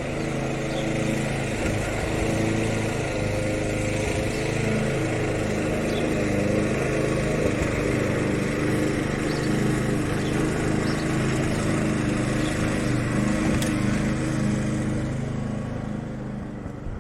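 Lawn mower engine running steadily, fading down over the last couple of seconds.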